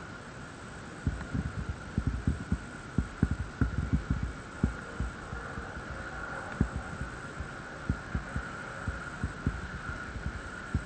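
Irregular low thumps of footsteps and gear knocking against a body-worn camera as an airsoft player moves, densest in the first half, over a steady faint hum.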